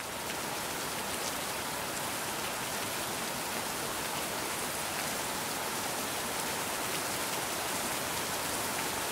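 Steady, even rainfall, a recorded rain sound laid over the intro.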